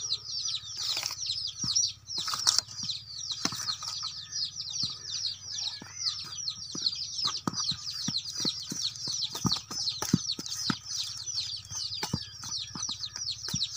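A perforated steel ladle stirs dry ragi flour and grated coconut in a steel plate, making irregular light clinks and scrapes against the metal. Behind it, birds chirp continuously in quick, high, falling notes.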